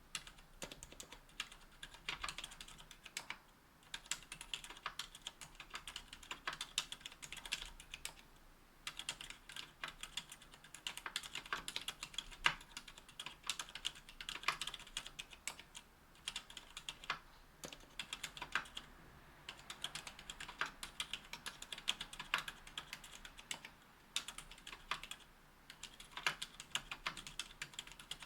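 Continuous fast typing on a mechanical keyboard with Cherry Silent Red linear switches (45 g), GMK keycaps and an aluminium plate in an aluminium case: a steady stream of soft, damped key clacks with brief pauses between bursts.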